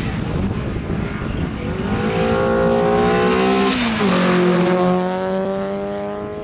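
VW Golf Mk2 race car engine, pulling hard as the car approaches, its note rising steadily. The note falls sharply as the car passes close by, about four seconds in, then holds lower as it moves away.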